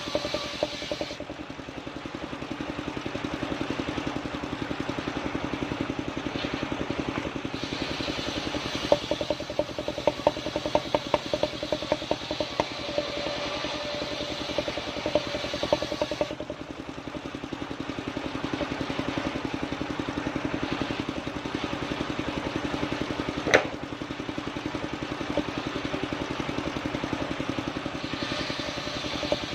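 Engine of a mobile circular sawmill running steadily. A run of short clattering knocks comes about nine to thirteen seconds in, and one sharp knock about 23 seconds in.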